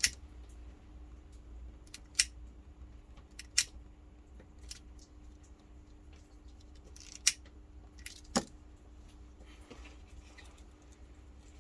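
A lighter clicking several times, with light handling noise, as it is worked to singe the cut end of paracord. There are about five sharp clicks spaced a second or more apart.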